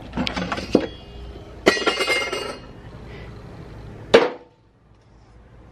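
Clatter of small containers and odds and ends being handled on a cluttered shelf: a quick run of knocks and clicks, a ringing clink about two seconds in, and one sharp knock about four seconds in.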